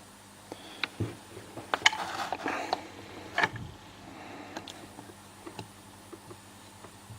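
Hook pick and tension wrench working in the keyway of a Master Lock No. 150 padlock: scattered small metallic clicks and ticks as pins are lifted and set, with a stretch of scraping about two seconds in and a sharper click about three and a half seconds in.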